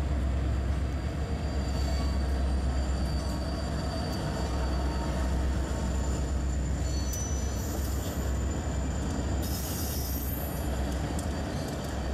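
HO scale model train running steadily along the layout track: a continuous low rumble with thin, high squealing tones that come and go, and a short hiss about three-quarters of the way through.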